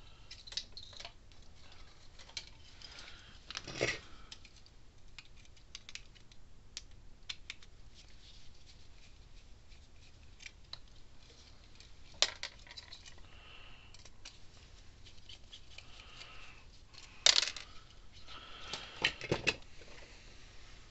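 Hand screwdriver backing small screws out of a circuit board, with scattered light clicks of metal screws and parts being handled and a few sharp knocks, the loudest about two-thirds of the way through.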